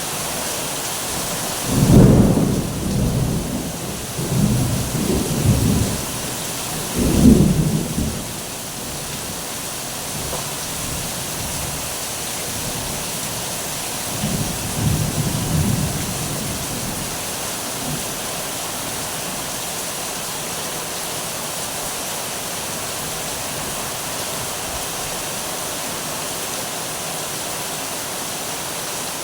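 Steady rain with rolling thunder: a loud rumble about two seconds in, more rumbles over the next several seconds, and a softer one about halfway, with rain alone after that.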